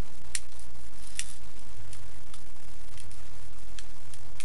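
Light, scattered clicks of small plastic 6mm airsoft BBs being handled, with some loose, about six ticks spread over the few seconds above a low steady hum.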